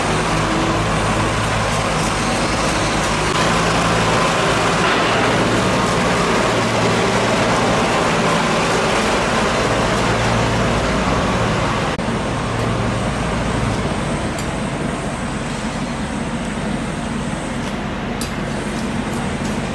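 Steady background noise with a low mechanical hum, like a running engine amid street traffic. The hum changes about twelve seconds in, and a few short clicks come near the end.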